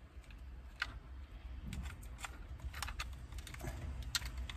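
Small plastic wiring connectors clicking and rattling as they are plugged into the back of a car multimedia head unit: a scatter of short, irregular clicks.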